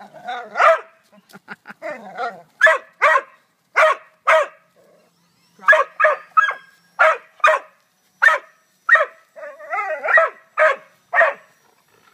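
Dog barking repeatedly with short, sharp barks, often in quick pairs, and a longer wavering cry about ten seconds in.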